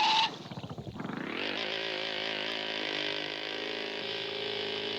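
Cartoon engine sound effect of a racing vehicle revving up with a rising whine, then running steadily at high revs. A steady high tone cuts off just after the start.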